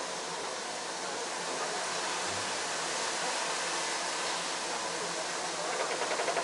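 Steady rushing hiss from the Puffing Billy narrow-gauge steam train on the move, with no distinct exhaust beats.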